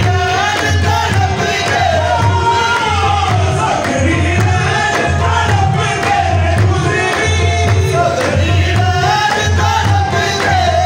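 Qawwali music: a voice sings a winding melody over steady held drone notes and a pulsing low drum beat.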